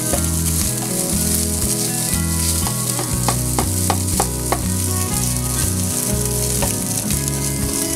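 Rice and scrambled egg sizzling in oil in a nonstick frying pan while a spatula stirs and breaks up clumps of rice. A quick run of spatula scrapes and knocks comes about three to four and a half seconds in.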